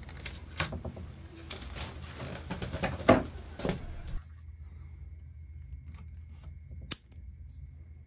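Plastic cable tie and wires handled with needle-nose pliers: small clicks and rustles, the loudest a sharp click about three seconds in. After about four seconds it drops to a faint steady background with one lone click.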